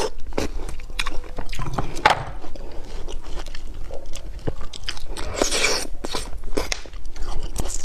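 Close-miked biting and chewing of frozen lychees: repeated crisp crunches and clicks with wetter chewing between them, sped up.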